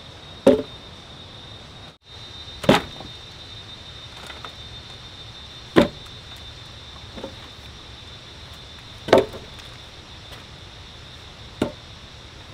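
Five sharp knocks or chopping strikes at uneven intervals, two to three seconds apart, over a steady hiss with a thin, high, steady tone.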